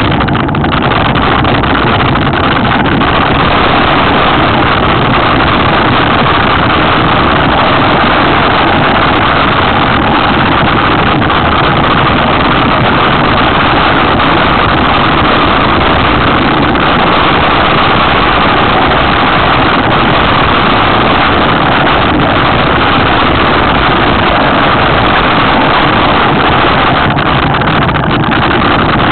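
Loud, steady wind rushing over the camera microphone with tyre and trail rumble on a fast mountain-bike downhill descent.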